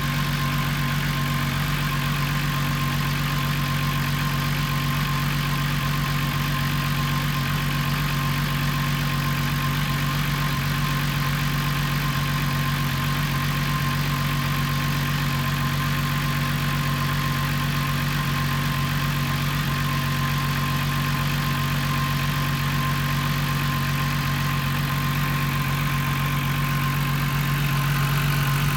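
Volkswagen Corrado engine idling steadily, an idle its owner calls rough.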